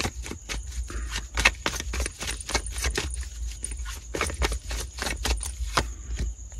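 A deck of tarot cards shuffled in the hands to draw a clarifying card: a rapid, uneven run of card-edge clicks and flicks, with a card brought out near the end.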